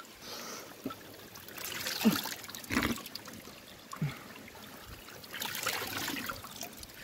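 Cold spring water running from a fountain's pipe spout and splashing onto the stones below, louder near the end as a hand is held under the stream, with a few soft knocks.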